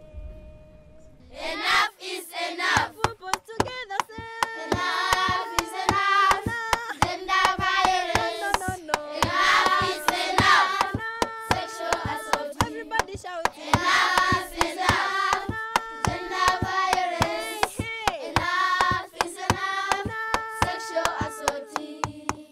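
A school choir singing a song in several voices, with hand claps keeping a steady beat of about two to three a second. The singing and clapping start about a second and a half in.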